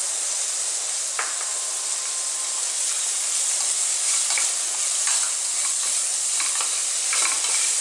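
Sliced shallots, green chilies and whole spices sizzling in oil in a pressure cooker, with a wooden spatula scraping and stirring against the pan now and then.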